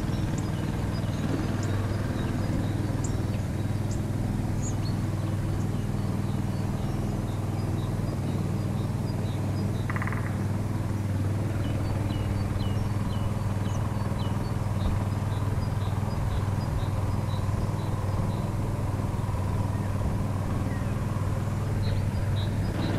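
An engine running steadily at one pitch, with many short, high bird chirps over it throughout.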